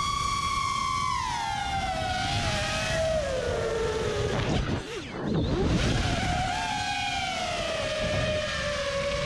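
FPV freestyle quadcopter's brushless motors whining on a 4S battery, the pitch falling after about a second. About five seconds in there is a brief throttle dip, and then the whine comes back and wavers as the throttle changes.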